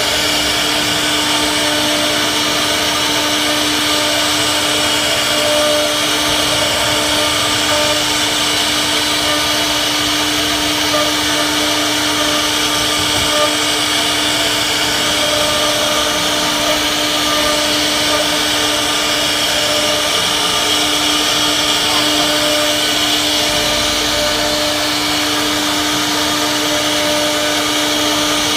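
CNC wood router running steadily, its spindle giving a constant, steady-pitched whine over the noise of the cut.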